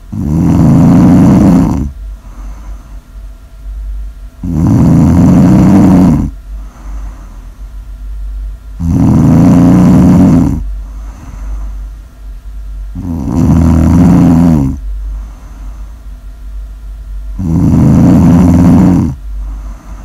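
A sleeping person snoring loudly: five long, rattly snores, each nearly two seconds long and coming about every four and a half seconds, with soft breathing between them. A low steady hum runs underneath.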